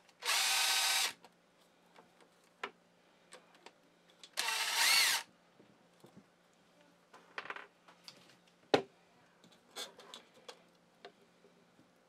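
Cordless drill/driver running in two short bursts of about a second each, backing the screws out of a vacuum pump motor's wiring cover; the second burst rises in pitch. Light clicks and a sharp knock follow as the loosened metal cover and screws are handled.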